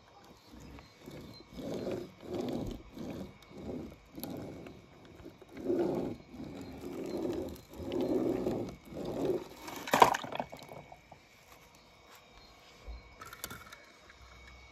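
Toy monster truck's wheels rolled back and forth over wet paint on paper, a run of short rubbing strokes. About ten seconds in, a single sharp knock.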